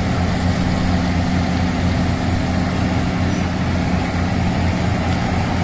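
Heavy diesel engine idling steadily, a low even drone.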